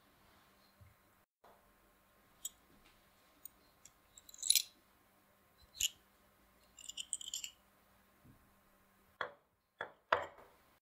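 Light metallic clicks and clinks as an old metal folding knife is handled, followed near the end by three knocks as it is set down on a wooden table.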